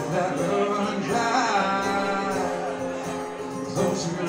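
A man singing over an acoustic guitar in a live solo performance, a long sung note bending in pitch from about a second in.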